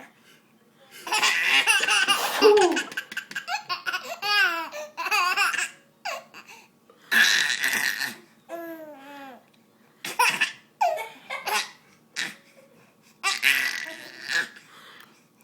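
A baby laughing hysterically in repeated fits, with loud breathy bursts between the laughs. The laughter comes in high, bouncing peals that rise and fall, stopping and starting several times.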